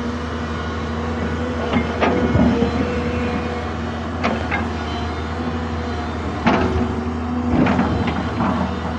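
Excavator's diesel engine running steadily under load, with a series of sharp knocks or clanks: two about two seconds in, two more about halfway, and others near the end.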